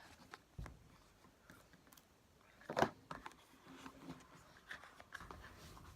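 Faint handling noises from unpacking a box: scattered small clicks and soft rustles, with one sharper click a little before the middle.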